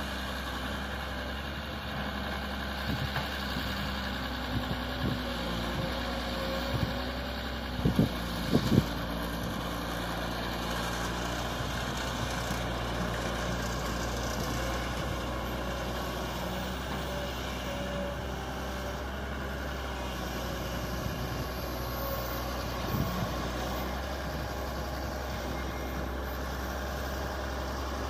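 Kobelco SK200 hydraulic excavator's diesel engine running steadily as it digs and loads soil into a dump truck, with a few loud knocks about eight seconds in and a smaller one around 23 seconds.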